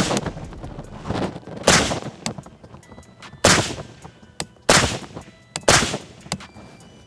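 Suppressed 9mm Kalashnikov-pattern carbine firing about five slow, spaced shots through a JK Armament solvent-trap suppressor with all 8 baffles installed; the shots are pretty quiet for gunfire.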